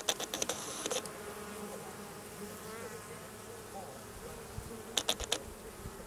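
Honey bees from an opened hive buzzing in a steady hum. Clusters of sharp clicks sound in the first second and again near the end.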